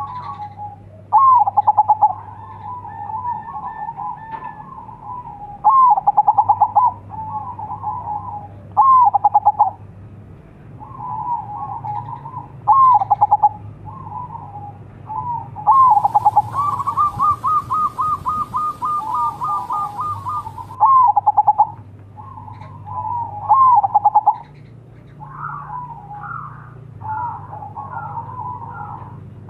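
Zebra dove (perkutut) cooing: loud rolling coo phrases come every three to four seconds, with softer coos between and a quick run of rapid notes about halfway through.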